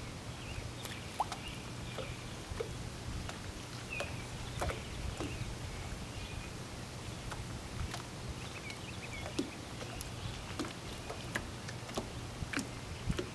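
Lake water lapping against a small aluminum boat hull and the shoreline: irregular small plops and light knocks, one or two a second, over a steady low hum, with faint bird chirps now and then.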